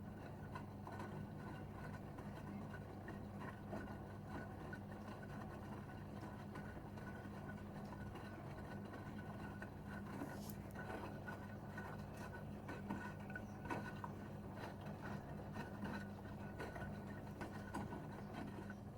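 Gorenje UseLogic 65165 washing machine running mid-cycle: a steady low motor hum with scattered faint clicks and rustles from the turning drum.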